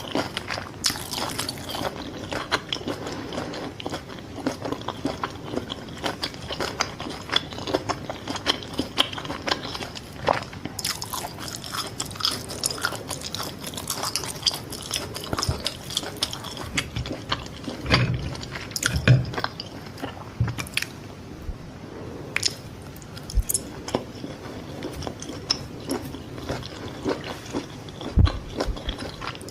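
Close-miked biting and chewing of Vietnamese fried fish balls (cá viên chiên): a steady run of crisp crunches and chewing clicks, with a few low thumps about two-thirds of the way through and near the end.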